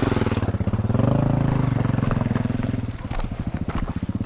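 Motorcycle engine running: it swells about a second in, then settles into an even beat.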